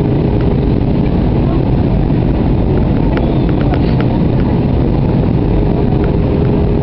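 Loud, steady cabin noise of an Airbus A320-family jet airliner in flight, heard from a window seat over the wing: the jet engines and the rush of air, with a steady hum that fades about half a second in and returns near the end. A few faint ticks come about three seconds in.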